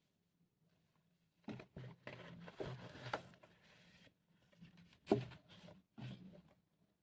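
Handling noises from vinyl records and their packaging: irregular rustling, scraping and light tapping that starts about a second and a half in, with one sharper knock about five seconds in.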